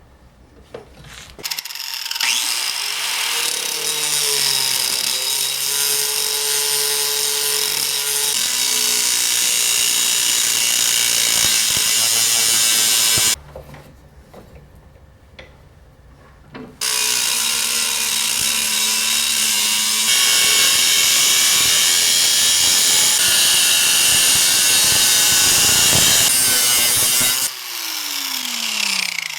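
A power tool cutting a piece off a pipe clamped in a vise. The motor spins up about two seconds in and runs under load, stops for a few seconds midway, starts and cuts again, then winds down with a falling whine near the end.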